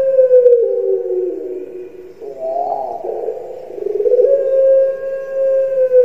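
Puter pelung (Barbary dove) cooing in long, drawn-out calls: a held note that slides down in pitch, a shorter wavering call a little after two seconds in, then another long held note from just past four seconds.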